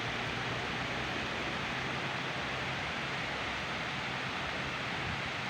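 Steady hiss of background noise with no distinct events: no beeps, voice or footsteps stand out.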